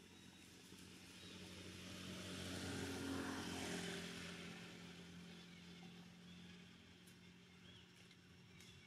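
A motor vehicle passing by: its engine and road noise swell to a peak about three seconds in, then fade away over a steady low hum.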